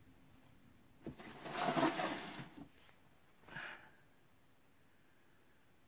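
A woman's long, heavy sigh, then a short sniff about three and a half seconds in.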